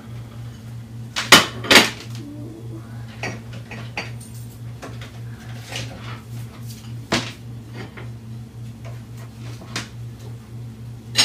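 Kitchen clatter: two sharp knocks a little over a second in, another a few seconds later, and a few lighter clinks of dishes and cupboards, over a steady low hum.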